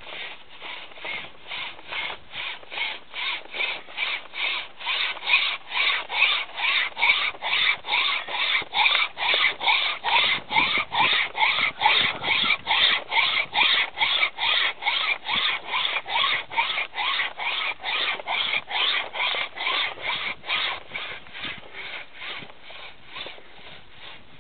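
Wire saw being pulled back and forth through the base of a cow's horn during dehorning: a rhythmic rasping of about two and a half strokes a second. It builds up over the first few seconds and fades near the end as the cut goes through.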